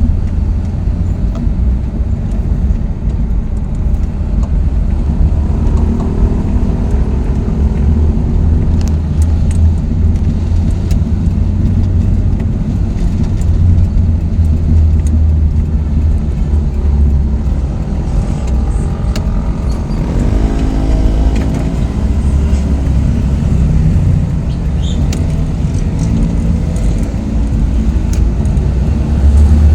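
A motor vehicle's steady engine and road rumble, heavy in the low end, as if driving, with a few brief changes in engine pitch.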